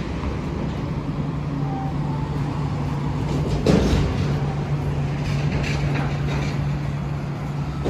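City street traffic: a steady low engine hum from a nearby vehicle over general traffic noise, with a brief louder rush about four seconds in.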